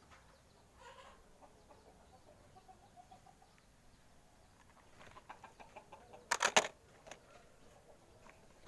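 Chickens clucking faintly, with a short burst of rapid clicking, the loudest sound, about six and a half seconds in.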